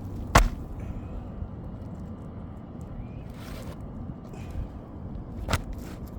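Two sharp knocks about five seconds apart, the first much the louder, over a steady low outdoor rumble.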